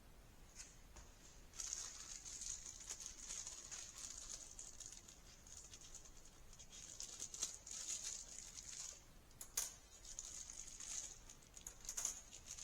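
Faint rustling and handling noises with a few sharp clicks, from the parts and packaging of a high bay shop light being handled.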